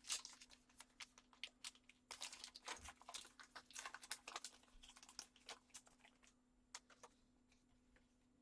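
Trading cards and foil pack wrappers being handled: a run of soft, quick clicks, flicks and crinkles as cards are slid and shuffled, thinning out near the end, over a faint steady hum.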